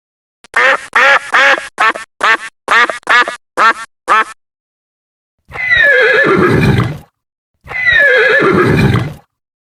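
A horse neighing: a quick run of about ten short, quavering calls, then two long whinnies that fall in pitch.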